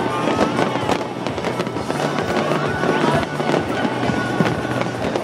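Fireworks going off in rapid succession, dense bangs and crackles with some gliding whistles, over music with a steady bass line.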